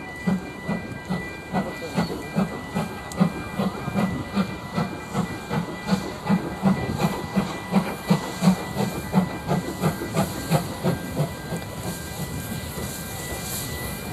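GWR steam locomotive pulling away with its train: a steady exhaust chuff that quickens slightly from about two and a half to three beats a second, over a hiss of steam. The beats fade near the end as it draws away.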